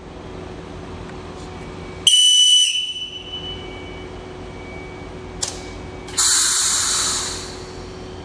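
SFM electric multiple unit 81-01 standing at the platform with a steady hum. About two seconds in, a shrill whistle sounds for under a second. Near the end, a loud burst of compressed-air hiss lasts about a second as the train readies to depart.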